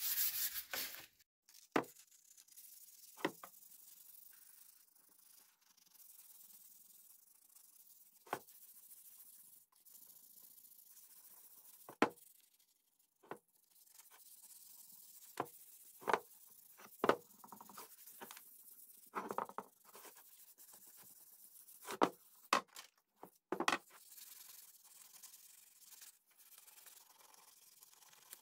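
Hand sanding of a wooden axe handle with 180-grit sandpaper: a short run of sanding strokes at the start, then scattered short scrapes and light knocks at irregular intervals, quiet in between.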